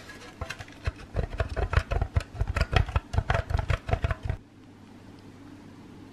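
A wedge of hard cheese rubbed quickly over a metal grater, in rapid rasping strokes of about four or five a second, stopping suddenly about four and a half seconds in.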